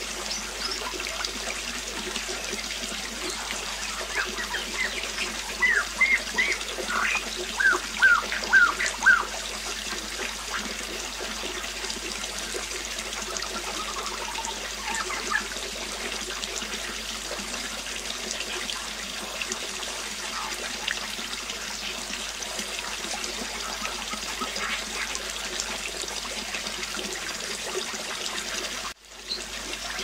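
Waterfall pouring into a pool, a steady rush of falling and splashing water. A small bird chirps in quick short calls over it, most often from about four to nine seconds in. The sound cuts out for an instant near the end.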